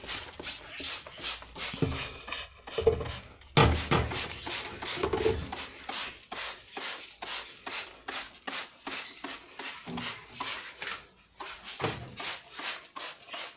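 Hand trigger spray bottle squirting caustic soda solution onto the inside of an oven: a short hiss with each squeeze of the trigger, in quick succession at about three a second.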